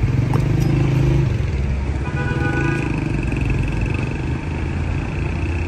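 Street traffic: motor vehicle engines running close by, loudest in the first second or so, with a higher engine hum around the middle.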